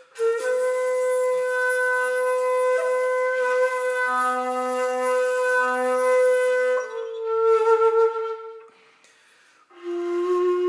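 A 2-shaku shakuhachi, an end-blown bamboo flute pitched in C, plays a slow classical honkyoku line. One long breathy note is held for about seven seconds, then steps down to a slightly lower note. After a short pause for breath about nine seconds in, a new lower note begins near the end.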